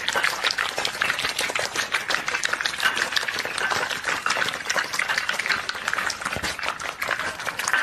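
Several puppies eating noisily from ceramic bowls: a continuous, rapid run of wet chewing, smacking and lapping, with their muzzles knocking against the bowls.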